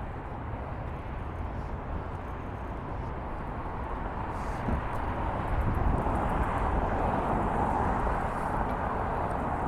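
Outdoor traffic noise with a low rumble, swelling louder about five to six seconds in as something passes, then easing slightly.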